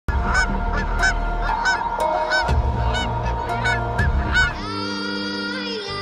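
A flock of geese honking, short calls coming about three a second, over a low rumble. About four and a half seconds in, the honking gives way to music with held tones.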